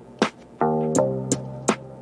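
Instrumental background music with a steady beat of sharp hits, about three a second, and a chord of sustained pitched notes entering about half a second in.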